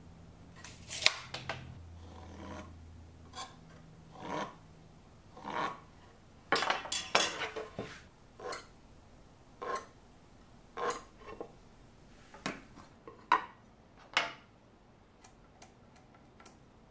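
Hand tools and wooden parts being handled on a workbench during pencil layout: irregular light knocks, clatters and short scrapes as the workpiece, pencil and square are picked up, shifted and set down, with a few small sharp clicks near the end.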